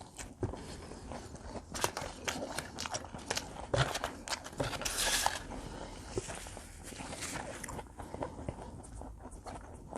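Close-miked chewing and biting of combination pizza, with a run of crisp clicks and smacking mouth sounds, and a brief hiss about halfway through.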